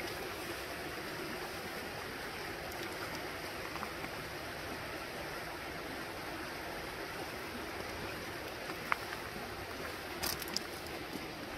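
Steady rushing of running water from a nearby stream or beck, swollen after a night of rain. A few faint, short clicks come near the end.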